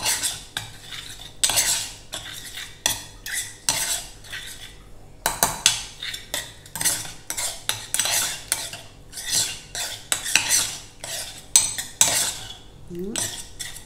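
A metal spoon stirring a thin sauce in a glazed clay pot. It makes repeated, irregular scrapes and clinks against the pot's bottom and sides, about one to two strokes a second.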